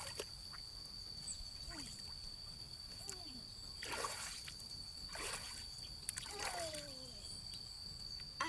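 Water sloshing, with two brief splashes about four and five seconds in, and a few short falling vocal sounds. A steady, thin high tone runs underneath.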